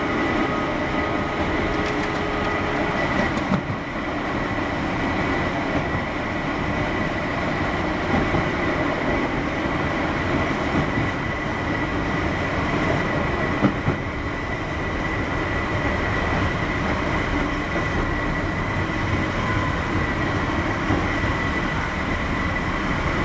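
Keihan 600 series electric train running, heard from inside the car: a steady rumble of wheels on rail under a constant high whine, with a couple of short knocks along the way.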